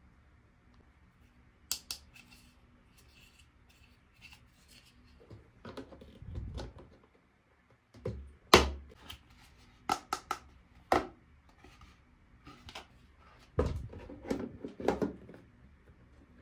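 Hands unpacking and handling small toys: scattered sharp clicks and taps with some rustling between, the loudest click a little over eight seconds in.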